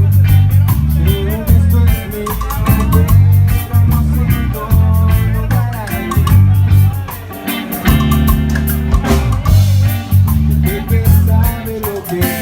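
Band music with a heavy bass line, drum kit with steady cymbal strokes and guitar, with a voice singing over it.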